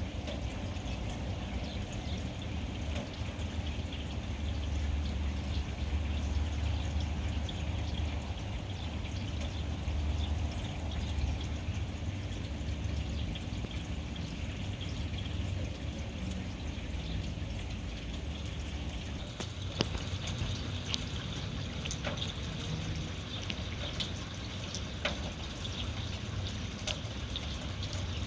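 Rainwater trickling and pouring steadily, with a low rumble under it. From about two-thirds of the way through, separate sharp drips land on top of the trickle.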